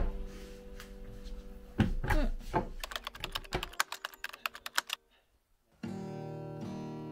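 Background music with a quick run of sharp clicks, like keys being tapped, in the middle. After a short dead-silent gap about five seconds in, an acoustic guitar song begins.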